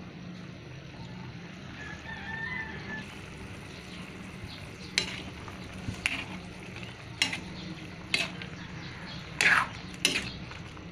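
A metal ladle stirring simmering chicken adobo, scraping and knocking against the metal wok about once a second from about halfway through, over a steady low hum.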